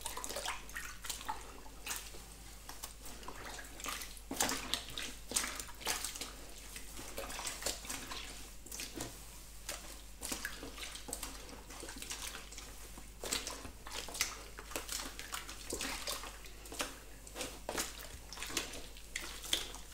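Water sloshing and splashing in a plastic wash basin as hands press and squeeze a mohair knitted jumper down into it to soak, with irregular squelches and splashes throughout.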